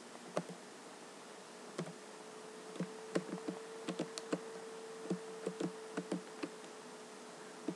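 Computer keyboard keys and mouse buttons clicking irregularly, in a quick cluster through the middle of the stretch, over a steady faint electrical hum.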